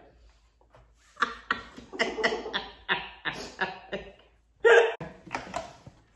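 Breathy laughter in quick short bursts, about three a second, with one louder pitched cry near the end.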